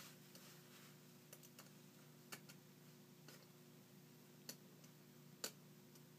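Faint clicks and light scratching of lock picks working inside a Bilock lock cylinder: a few sharp isolated clicks, the loudest about five and a half seconds in, over a steady low hum.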